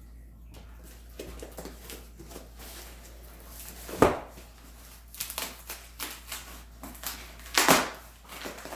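A cardboard shipping package is being handled and torn open. There are crackling and rustling sounds, a sharp rip about four seconds in, and a longer tearing sound near the end, where something glued comes apart.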